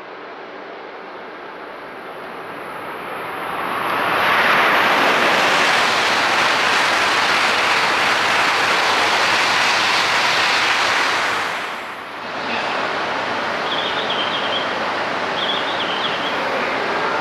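JR E2 series Shinkansen passing through a station at speed: a rushing noise that builds over about two seconds, holds steady for about seven seconds, then cuts off abruptly. A steadier, quieter train noise follows, with a few short high chirps.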